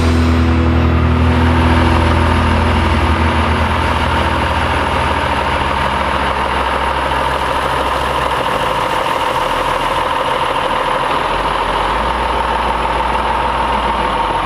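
Heavy truck engine running steadily at idle, with a constant whine over a low rumble. Background music fades out over the first few seconds.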